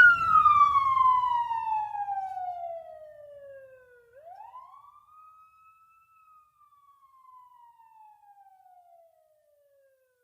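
Police-car siren sound effect processed with a Doppler shift: each wail sweeps down slowly from high to low, then rises again about four seconds in and falls once more, growing steadily fainter, as if the vehicle were passing from left to right. A faint low rumble fades out in the first few seconds.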